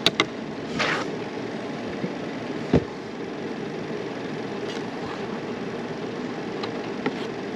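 A steady low rumbling background noise, with a few short clicks near the start and one sharper knock about three seconds in.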